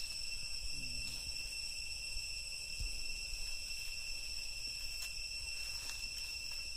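Insects droning outdoors: a steady, unbroken high-pitched chorus that holds two even tones.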